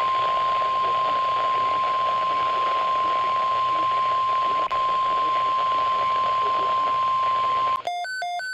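NOAA Weather Radio's 1050 Hz warning alarm tone: one long, loud, steady tone over radio static, heard through a weather radio receiver's speaker, with one brief dropout a little past the middle. It signals that an urgent alert, here a tornado watch, is about to be read. Near the end the tone stops and the receiver starts an alert beeping that alternates between two pitches.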